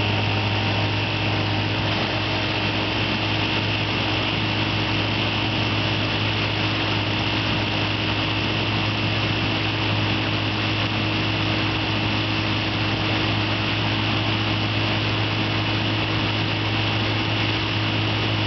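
1956 Evinrude Fleetwin 7.5 hp two-cylinder two-stroke outboard motor running steadily under way, at an unchanging speed throughout. It is running low on power, more like a 5.5 hp, for a cause the owner has not yet found.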